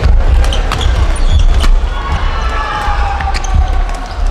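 Badminton play in a sports hall: a string of sharp clicks of rackets striking a shuttlecock, with shoe squeaks on the court floor in the middle, over a loud low rumble of the hall.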